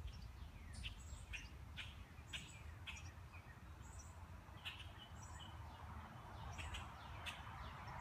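Faint, irregular high chirps and peeps of baby birds calling from inside a nest box, over a low outdoor background.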